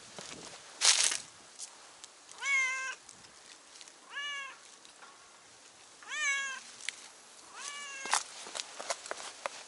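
Stray cat meowing four times, each meow about half a second long and a couple of seconds apart. A brief loud noise comes about a second in, and footsteps tap on the concrete steps between the meows.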